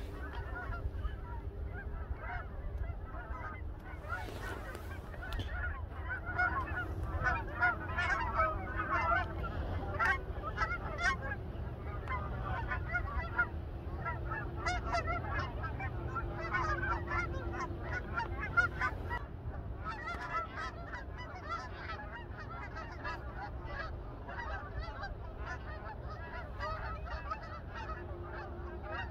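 A large flock of geese passing overhead, many overlapping honking calls. The calls are busiest over roughly the first twenty seconds, then thin out, with wind rumbling on the microphone underneath.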